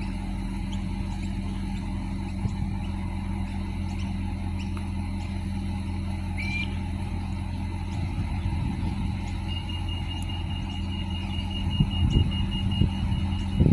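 Diesel railcar of the Adelaide Metro 3000/3100 class idling steadily at the platform, a low engine hum. A short rising beep sounds about halfway, and a rapid high-pitched beeping starts about two-thirds in and runs on.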